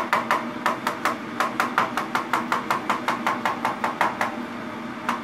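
Kitchen knife chopping banana on a plastic cutting board: quick, even taps of the blade on the board, about five a second, with a short pause near the end.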